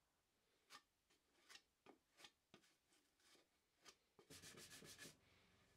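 Faint scraping of a putty knife spreading wood putty over a walnut corbel to fill woodworm holes: a few separate strokes, then a quick run of short strokes about four seconds in.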